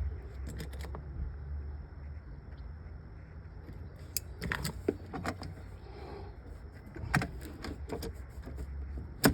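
Small metal parts clinking and rattling in short clusters of clicks as a battery kill switch is worked onto the battery terminal, with the loudest clack near the end. A low steady hum runs underneath.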